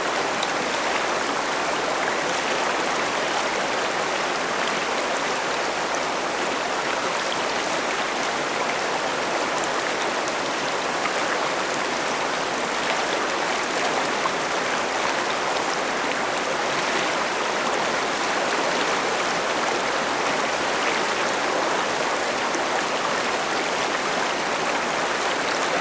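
River water rushing and babbling steadily over rocks.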